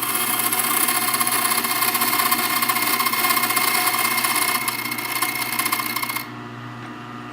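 Key-cutting machine's cutter milling the third cut into a Schlage key blank, a steady grinding of cutter on metal. It stops about six seconds in, leaving a low hum.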